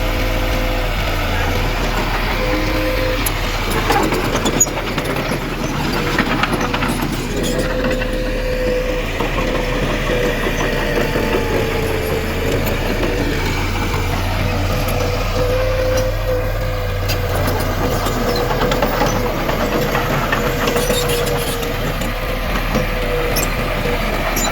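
Diesel engine of heavy earth-moving machinery running steadily, with a thin wavering whine over it and a few short clanks, the clearest a few seconds in.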